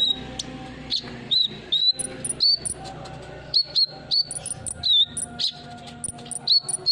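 Sunbird (kolibri ninja) calling: a quick, irregular series of short, sharp chirps, some swooping down or up, over a faint steady hum.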